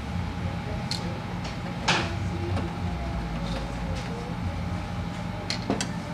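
Sharp clicks and light knocks of a screwdriver working the screws and metal parts of a copier's scale plate beside the platen glass, the loudest about two seconds in and two close together near the end, over a steady low hum.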